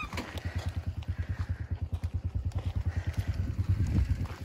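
Small single-cylinder motorbike engine running nearby with a quick, even low putter that grows louder near the end.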